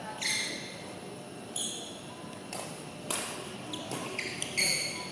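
Badminton rally: sneakers squeak sharply on the court floor several times, and a shuttlecock is struck by rackets with two sharp pops about half a second apart midway through.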